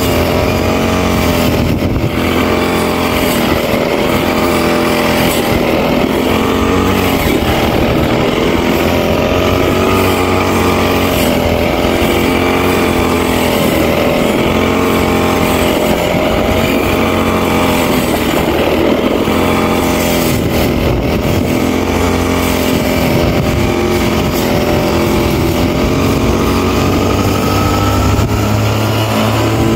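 Brush cutter's small engine running steadily at high speed while cutting grass, its pitch wavering up and down without pause.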